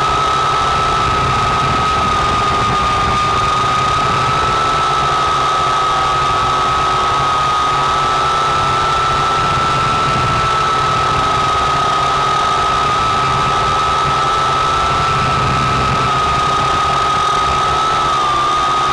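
Syma X8C quadcopter's motors and propellers whining steadily at one high pitch as it hovers, picked up by the action camera mounted on the drone itself. The pitch dips briefly near the end.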